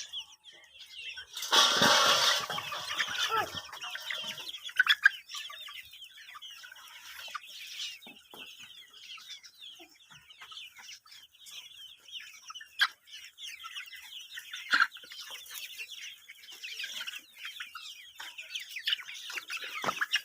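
Many small birds chirping at once, a dense run of short, high overlapping calls. About two seconds in there is a brief loud rustling burst, like wings flapping.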